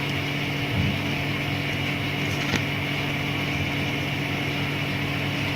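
Electric exhaust fan motor running with a steady hum and whir, its freshly oiled bearing still not quite silent. A faint click about two and a half seconds in.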